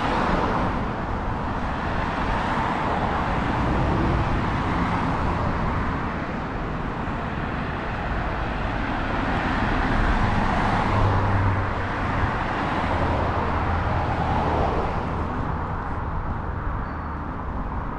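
Road traffic on a busy street: cars passing one after another, their tyre and engine noise swelling and fading as each goes by, with a deeper engine hum from about ten seconds in.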